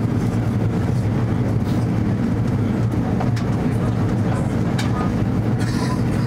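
Airbus A330 cabin noise in flight: a steady low drone of the jet engines and rushing air, heard from a seat behind the wing. A few faint ticks sit on top of it.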